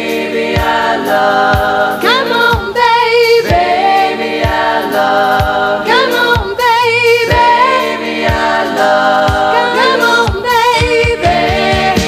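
Studio recording of a band's song: a woman sings lead in held, wavering notes with backing vocal harmonies, over a steady drum beat.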